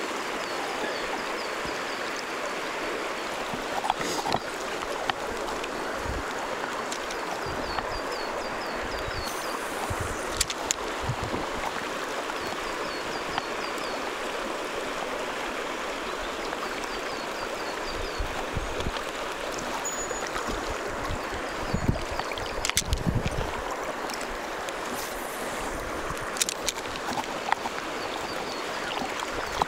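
Steady rush of a river riffle, fast shallow water running over stones, with a few short knocks.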